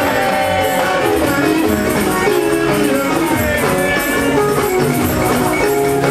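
Live gospel band music: melodic notes over a steady bass and percussion beat.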